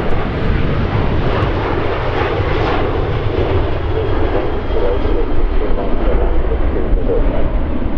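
Ryanair Boeing 737's twin jet engines at takeoff thrust as it lifts off and climbs away: a loud, steady roar with deep rumble. The hiss in it slowly fades as the jet moves off.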